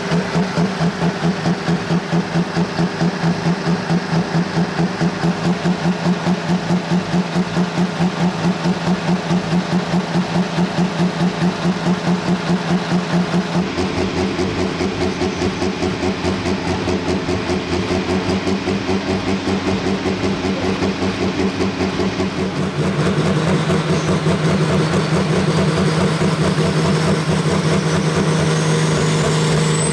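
Tuned turbo-diesel engine of a 3.6-tonne Super Sport class pulling tractor idling with a steady pulsing lope. Its note drops a little about halfway through, then steps up louder about two-thirds of the way in. A thin high whistle climbs in pitch near the end.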